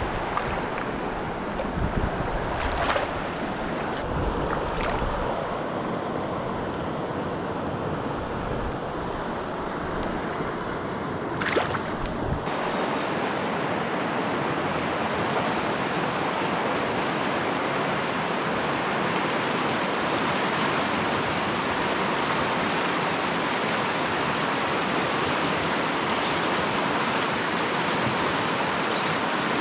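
Mountain stream rushing over rocks in riffles, a steady watery rush. For the first dozen seconds wind buffets the microphone and there are a few brief knocks; after that the rush is steady and a little louder.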